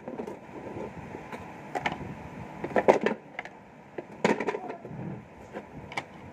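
Parts of a toy kitchen set being handled and fitted together: scattered, irregular knocks and clicks.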